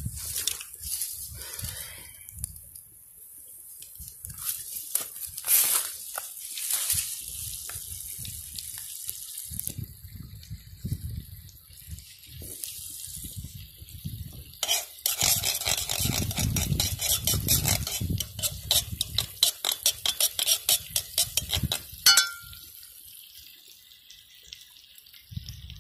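Food frying in an aluminium pan over a wood fire: a sizzling hiss with a utensil stirring and scraping against the metal. There is a run of quick scrapes in the middle and a loud ringing clank about 22 seconds in.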